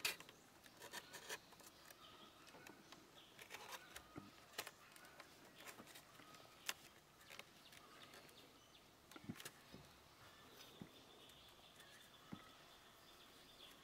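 Near silence: scattered faint clicks and soft taps from a woven bamboo basket being handled and worked by hand.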